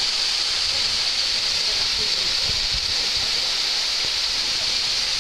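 Waterfall: a steady rush of falling water, with a bright hiss.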